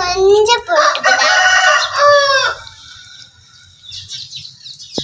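A rooster crows once, a loud cock-a-doodle-doo lasting about two and a half seconds and ending in a falling note. Faint small-bird chirping follows.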